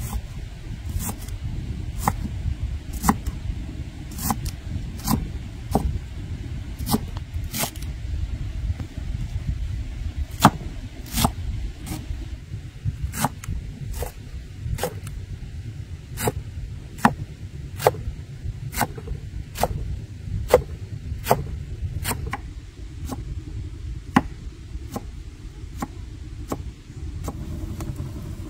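A knife chopping on a cutting board: a sharp knock a little more than once a second, some harder than others, over a steady low rumble.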